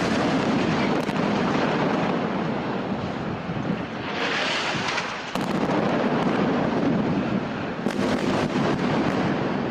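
Airstrike on a high-rise building: explosions and the dense rumble of the blast and falling debris, with a brighter, hissing surge about halfway through.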